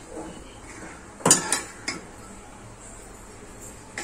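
A serving spoon clanking and scraping against a metal pot as cooked biryani rice is turned over, with one loud clank about a second in and a couple of lighter clinks after it.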